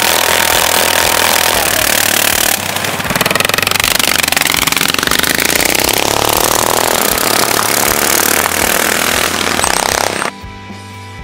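Two mini bikes' small gasoline engines running, then revved hard from about two and a half seconds in as the bikes pull away, a fast rattling run of firing pulses. Just before the end it cuts off suddenly to background music.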